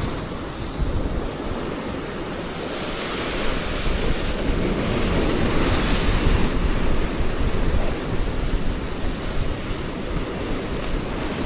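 Sea surf washing against shore rocks, with wind buffeting the microphone; the wash swells for a few seconds in the middle and then eases.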